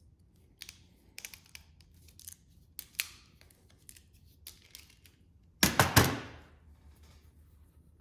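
Small hand tools and wire terminals being handled on a workbench: scattered light clicks and scrapes, then a loud cluster of three or four sharp knocks close together about six seconds in.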